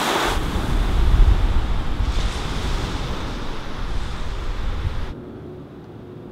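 Steady rushing wind-and-surf noise with a heavy low rumble. It cuts off abruptly about five seconds in, leaving a much quieter room tone.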